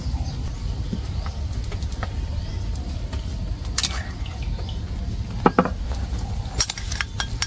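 Spoon and ladle clinking against a ceramic bowl and an aluminium cooking pot, a few light clinks with one louder ringing double clink about two-thirds of the way in. A steady low rumble runs underneath.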